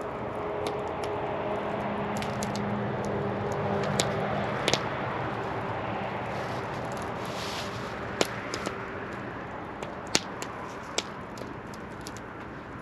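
Wood campfire burning and crackling, with several sharp pops from the burning logs over a steady rushing hiss.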